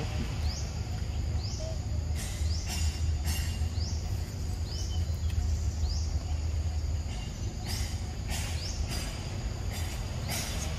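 Outdoor forest ambience: a short, high, rising call repeats about once a second over a steady low rumble, with a few brief bursts of hiss.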